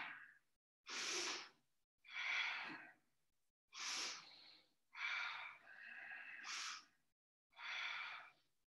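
Slow, audible human breathing: about five long breaths, each lasting about a second with short pauses between, paced to a slow knee-circling exercise.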